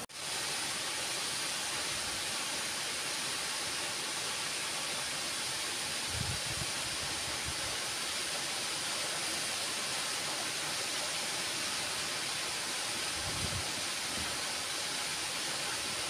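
Waterfall falling down a rock face into a pool: a steady, even rush of water, with two brief low thumps, about six seconds in and again about thirteen seconds in.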